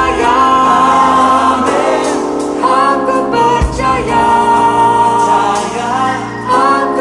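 Choir singing a gospel worship song over instrumental backing, in long held notes.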